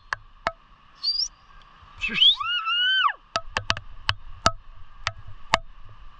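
Steady high-pitched chorus from a rural landscape, broken by scattered sharp ticks. About two seconds in, an animal gives one loud call that rises and then falls, lasting about a second; a shorter rising call comes just before it.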